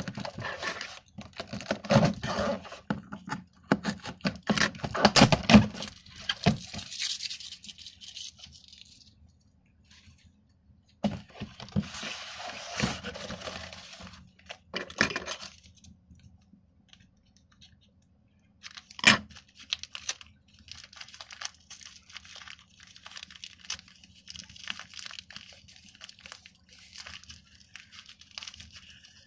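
A taped cardboard shoebox being cut and opened: knocks and scraping as a blade works along the packing tape, a stretch of tearing near the middle, and a sharp click. Near the end comes the crinkling of a plastic bag of stacking cups.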